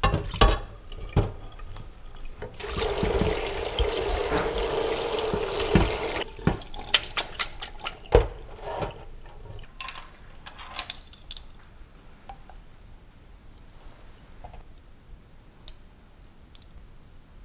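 Water from boiling chicken poured through an enamel colander into a stainless-steel sink, splashing for about three and a half seconds. Before and after it come knocks and clatter as the chicken pieces are tipped in and the colander is handled to drain, with a few faint clinks near the end.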